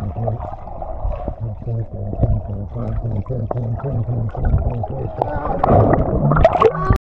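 Swimming-pool water sloshing and splashing with many small splashes, busier and louder near the end, then cutting off suddenly.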